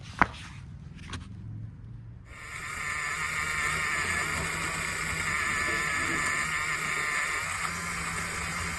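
A sharp click, then from about two seconds in a small electric motor starts whirring steadily, typical of a toy RC truck's drive motor.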